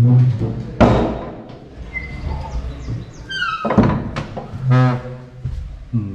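A heavy old wooden door being worked open, with a thunk about a second in. A short falling squeak and more knocks come around three and a half seconds in as it swings.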